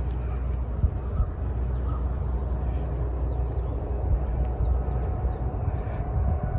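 Crickets chirring steadily in the background, with a low rumble of wind on the microphone.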